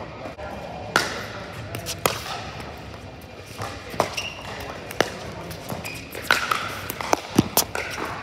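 Pickleball paddles striking a plastic ball in a fast rally: sharp pops about a second apart, thickening near the end, ringing in a large indoor hall.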